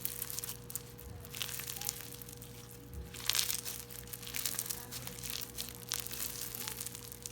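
Hands squishing and stretching a clear slime, making dense crackling and popping clicks that are busiest about three seconds in. A faint steady hum lies underneath.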